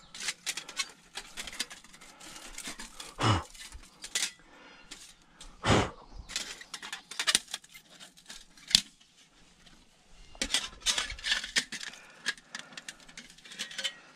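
Folding Firebox camp stove being taken apart and packed flat: its thin metal panels clink, rattle and scrape against each other. There are sharper knocks about three, six and nine seconds in, and a quick flurry of rattling after about ten seconds.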